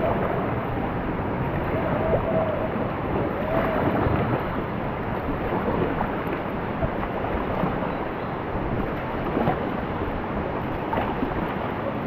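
Steady rush of river water with wind noise on the microphone. A few faint, short calls sound in the background in the first few seconds.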